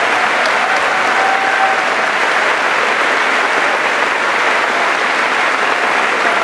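A large crowd of students applauding: steady, dense clapping with no break.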